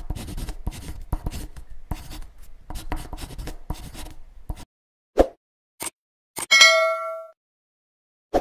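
Intro sound effects: pen-on-paper scratching strokes for about four and a half seconds while script lettering is drawn, then a soft thump, two clicks and a ringing, bell-like notification ding that fades out.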